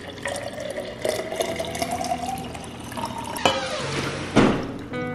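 Liquid pouring into a glass, its pitch rising as the glass fills. Two sharp knocks follow near the end.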